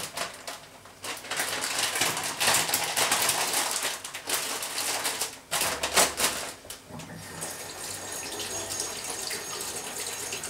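Kitchen tap running into a stainless steel sink, with hands working under the water in the last few seconds. Before that comes a stretch of louder, irregular rustling and knocking.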